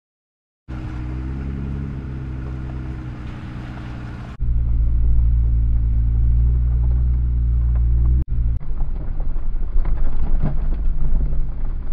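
Jeep engine running at low trail speed. A steady engine hum starts about a second in, then switches abruptly to a louder, deeper rumble with scattered knocks.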